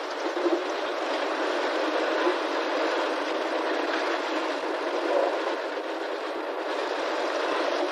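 Small narrow-gauge diesel locomotive running steadily as it moves along the track hauling empty cane wagons, an even, unbroken noise without deep bass.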